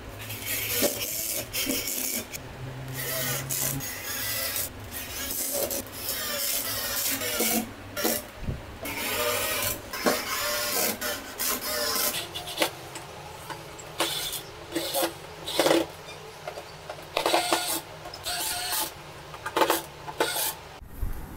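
A drill-driver driving screws into particleboard to fasten caster wheel mounting plates. It comes in a string of short grinding bursts with brief pauses between screws.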